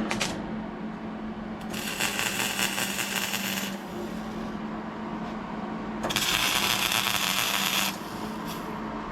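A power tool running with a steady hum, twice bearing down on the work for about two seconds, louder and harsher each time: about two seconds in and again about six seconds in.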